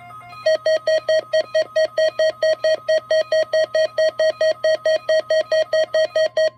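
A weather radio receiver's warning alarm going off, beeping rapidly at about four beeps a second, set off by the NOAA Weather Radio warning alarm test. A faint steady alert tone runs beneath the beeps. A few soft beeps come first, and the loud beeping starts about half a second in.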